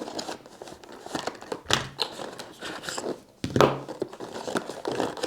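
Charger box being opened and its packaging handled: irregular crinkling and rustling, with a few louder knocks about two seconds in and again past the middle.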